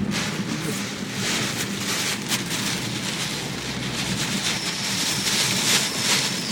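Steady noise of typhoon rain and wind, with no clear single event.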